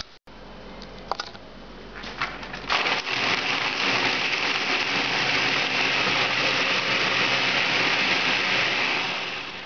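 A few light clicks, then a countertop blender starts about three seconds in and runs steadily, pureeing a thick, warm mole sauce of chilies, nuts and stock, and winds down near the end.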